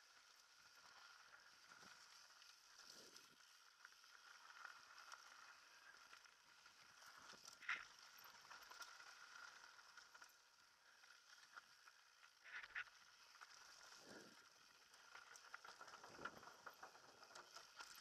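Faint rattling and ticking of a mountain bike running down a dirt singletrack, with two sharper clacks, one about eight seconds in and one about thirteen seconds in, and a few soft low thuds.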